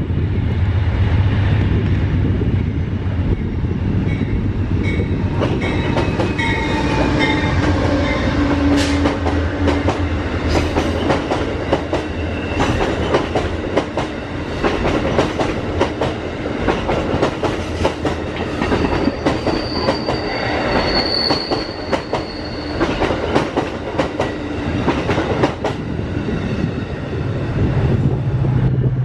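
Amtrak passenger train of stainless-steel Amfleet coaches passing close by: a steady rumble with many wheel clicks over the rail joints, and brief high-pitched wheel squeals twice.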